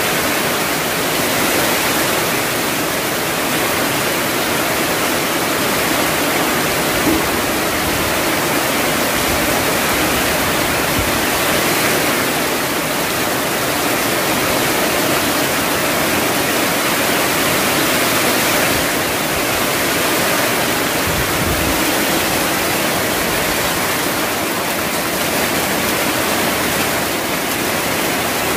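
Torrential typhoon rain pouring down in a steady, dense rush that swells and eases slightly now and then.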